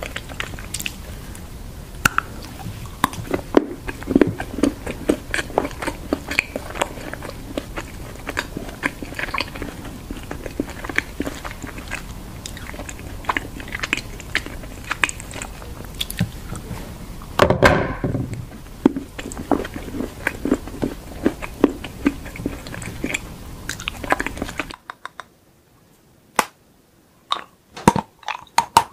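Close-miked biting and chewing of chocolate moulded into tools such as a wrench, with a steady run of small crunches and cracks and a louder bite about 17 seconds in. Near the end the background drops away and only a few sharp snaps are heard.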